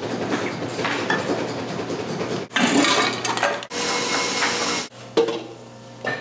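Kitchen work sounds: utensils, dishes and pans clattering and clinking. The sound changes abruptly several times, as short clips are cut one after another.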